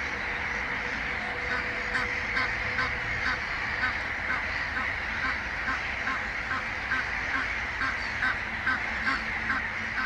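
Egyptian goose honking: a rapid, even series of short nasal calls, about two or three a second.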